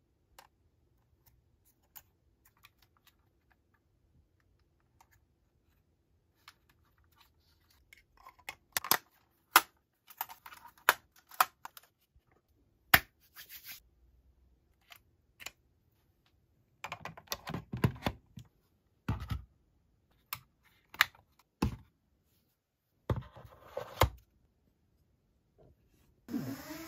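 Hands handling hard plastic drone parts and a charging cable on a tabletop: a few faint clicks at first, then from about eight seconds in, louder clusters of clicks, taps and scrapes as the cable is handled and plugged into a battery charging hub. A short rising whine begins just at the end.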